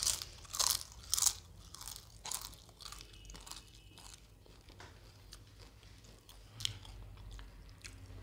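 Close-up crunching bites of crisp food, three loud crunches in the first second and a half, then softer chewing that fades away. A single short click about six and a half seconds in.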